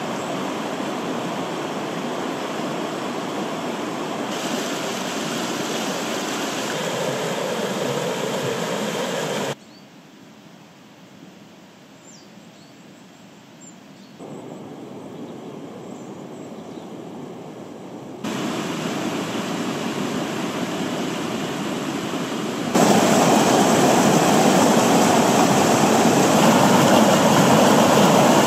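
Steady rushing of a rain-swollen river and its rocky tributary, with the level jumping up and down at edit cuts. It is much quieter for several seconds in the middle and loudest near the end, where the stream tumbles over rocks.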